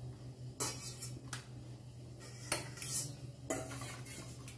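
A handful of separate metallic clinks and knocks as an electric hand mixer's steel beaters touch a stainless steel bowl holding raw eggs. The mixer is not running; the loudest knock comes about halfway through.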